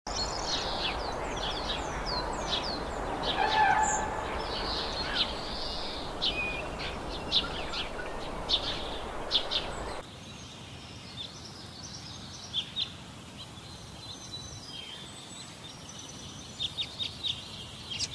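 Many small birds chirping and calling, with short high notes and quick falling whistles over a steady background hiss. About ten seconds in, the background noise drops away suddenly and sparser chirps go on.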